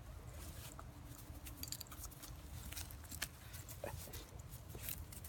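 Pit bull puppy chewing and biting at an object, faint scattered clicks and rustles.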